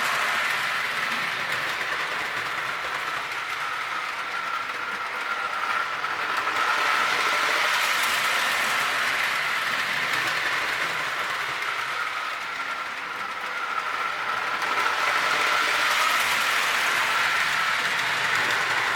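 Lionel 0-4-0 toy train locomotive running around the track hauling skeleton log cars: a steady motor whine with the clatter of wheels on the rails. It grows louder twice as the train comes close.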